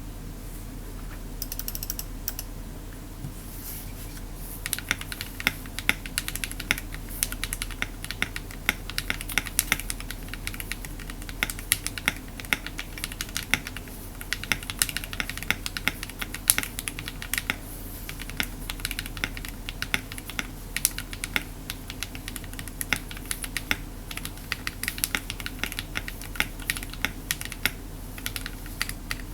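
Typing on a mechanical keyboard with lubed Akko Matcha linear switches (Krytox 205G0 on the switches, 105G0 on the springs) in an aluminum case and plate. A few scattered keystrokes at first, then steady fast typing from about four seconds in, over a low steady hum.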